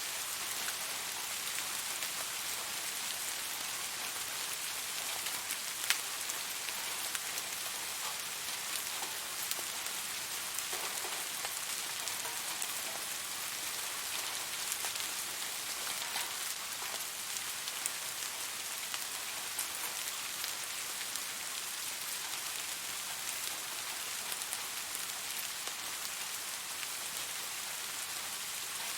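Steady rain falling on a surface, a dense even hiss with individual drops ticking through it and one sharper drop about six seconds in.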